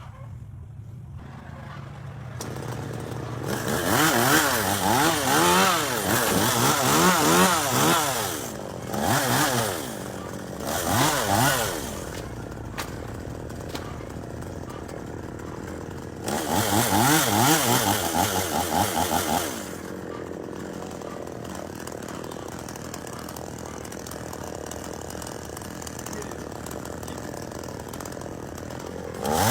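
Gasoline chainsaw idling, with its engine revved up to high speed four times: a long burst a few seconds in, two short ones around ten seconds, and another long one just past halfway. The pitch wavers up and down during each burst.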